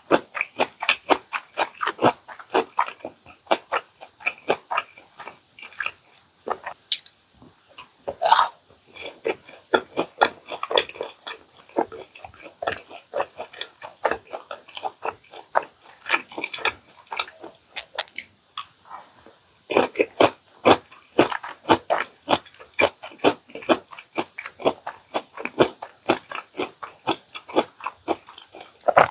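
Close-miked chewing and biting: a steady run of wet, clicky mouth sounds, several a second, with one louder, longer sound about 8 seconds in and a brief lull near two-thirds of the way through.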